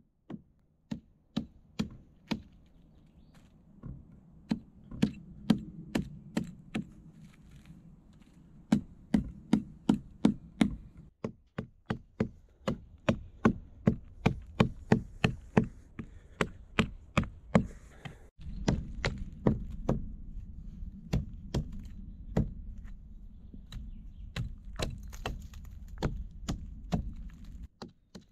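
Small hatchet chopping into the wood of a fallen tree trunk: a steady run of sharp blows, about three a second.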